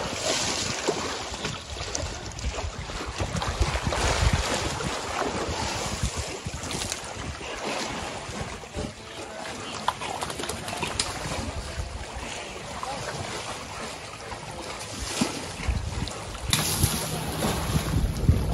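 African elephant splashing and sloshing river water with its trunk and body, close up, in irregular surges. Wind rumbles on the microphone at times, most strongly near the end.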